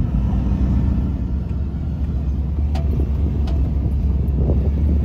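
Motor vehicle driving, a steady low rumble of engine and road noise, with two faint clicks in the middle.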